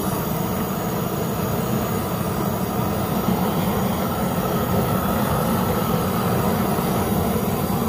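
Su-VGun grill gun torch running with a steady rushing blast of flame, searing the outside of a smoked prime rib.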